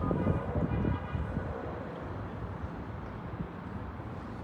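Outdoor city ambience: a steady hum of distant traffic, with a brief louder rumble and a short tone in the first second.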